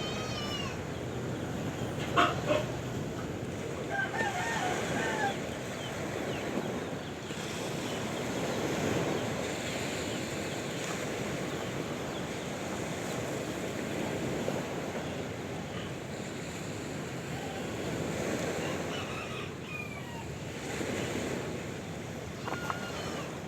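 Sea waves washing steadily, with animal calls over them: a loud sharp call about two seconds in, a quick string of short calls around four to five seconds, and a few more calls near the end.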